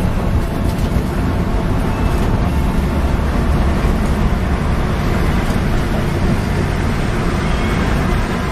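Steady low rumble inside a coach at speed on a rain-soaked road: the bus's engine and tyres on the wet surface.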